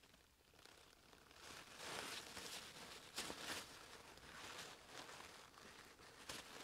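Near silence with faint rustling of a paper towel and rag as a small gearbox housing is handled and wiped, in a few soft bursts.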